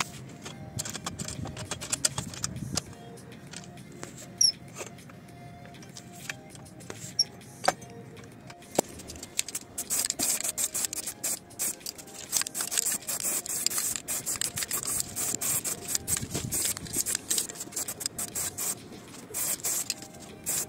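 Aerosol spray-paint can hissing in a run of short bursts, starting about halfway through and going on to the end. Before that, only scattered light clicks and knocks.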